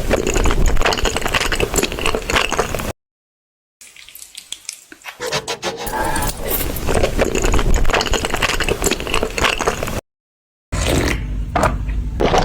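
Wet chewing and eating sounds close to the microphone: dense smacking and crunching clicks, broken twice by abrupt cuts to silence.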